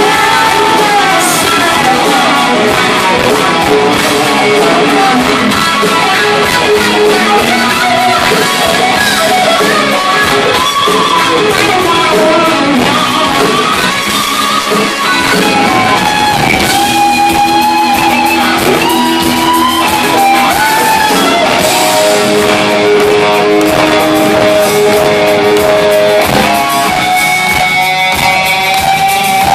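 A rock band playing live and loud in a large hall, led by a distorted Les Paul-style electric guitar over drums, with singing. Bending and long-held notes come through in the second half.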